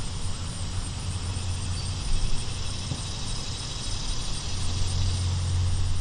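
Low hum of a ruby-throated hummingbird's wings as it hovers, swelling about two seconds in and again near the end. Under it runs a steady high insect chorus.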